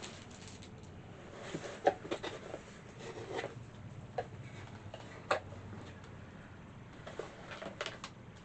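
Scattered small clicks, taps and rustles of items and packaging being handled during unboxing, the sharpest clicks about two and five seconds in.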